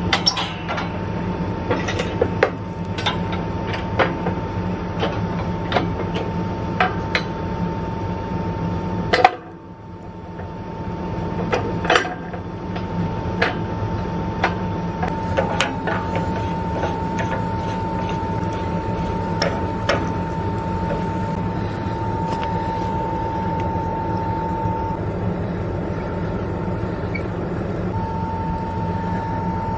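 Tractor engine idling steadily under a steady high whine, which drops out for a few seconds near the end. Over it come scattered metal clinks and knocks of hitch parts and chains as an anhydrous nurse tank is hooked to the toolbar.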